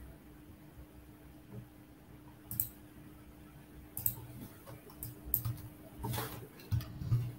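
Computer mouse clicks and key taps picked up by a laptop or headset microphone, about half a dozen scattered sharp clicks, some with a low thud, over a faint steady hum.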